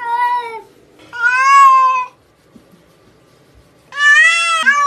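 A wet domestic cat meowing loudly in protest at being bathed: three drawn-out meows, the first already under way at the start, another about a second in, and the last near the end.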